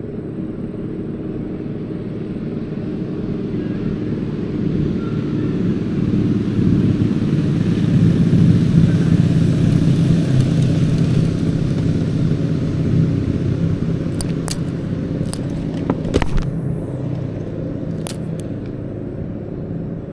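Low engine rumble of a passing vehicle, swelling to a peak about halfway through and then fading away. Near the end come a few sharp clicks and a brief rush of noise.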